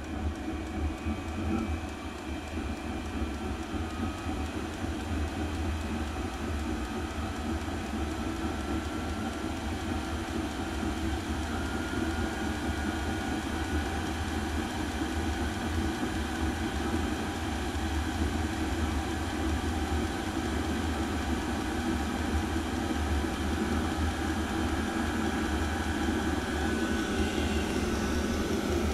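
Cheap Chinese 8 kW diesel air heater running, a steady low mechanical drone that grows slightly louder over time.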